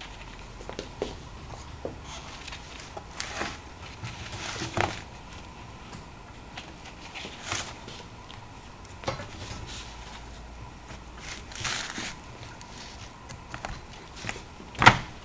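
Flexible stainless-steel mesh sheet and the wire frame of a baguette tray being handled and fitted together: scattered scrapes, crinkles and light metal clanks, with one sharp knock near the end.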